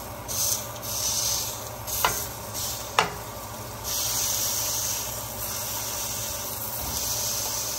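Food sizzling in a pan on the stove: a steady hiss, with two sharp clicks about two and three seconds in.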